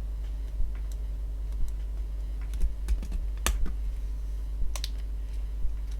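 Small plastic clicks and taps as a Nokia phone's internals are pressed into its new plastic shell, with a cluster of sharper clicks in the middle.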